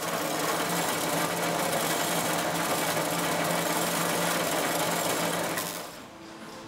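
Old screw-making machinery running at speed: a dense, steady mechanical clatter with a low hum. It cuts off sharply shortly before the end.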